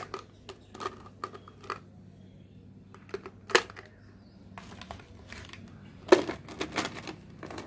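Plastic ball pens and their clear plastic jar being handled: scattered sharp plastic clicks and knocks as the pens clatter against the jar, the loudest knocks about three and a half and six seconds in.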